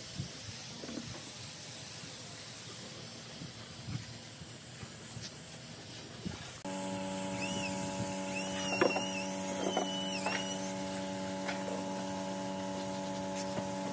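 Compressed-air spray gun hissing as it sprays finish onto a wooden tabletop. About halfway through, a steady mechanical hum starts and runs on under the hiss.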